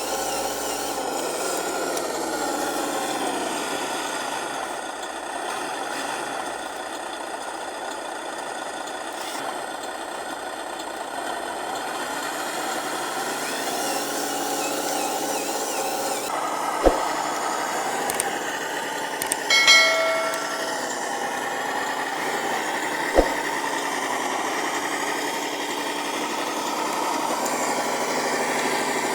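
Radio-controlled model truck's drive motor and gearbox running steadily with a mechanical whine that shifts slowly in pitch. A few sharp knocks come through, one about two-thirds of the way in and another near the end, with a short clatter between them.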